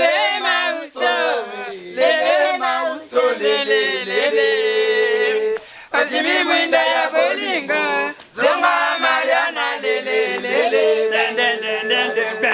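Voices singing without instrumental backing, a man's voice leading, with long held notes and short breaks between phrases.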